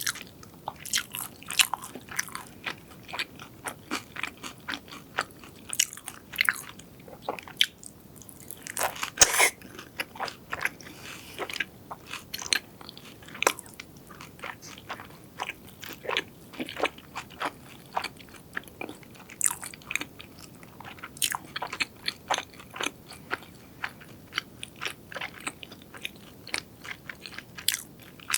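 Close-miked eating: irregular crunchy bites and chewing of crisp fried food, with a denser, louder run of crackles about nine seconds in.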